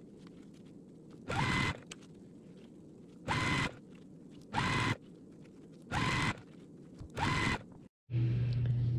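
Electric sewing machine running in five short bursts, each under half a second, its motor whirring up at the start of each one, with quiet pauses between. Near the end a steady low hum begins.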